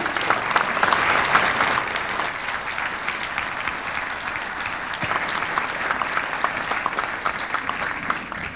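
Audience applauding, loudest about a second in, then easing and fading out near the end.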